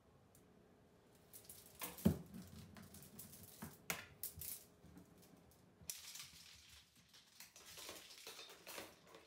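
A clothes hanger falling and clattering: one sharp knock about two seconds in, then a few lighter clatters, followed later by a stretch of softer rustling.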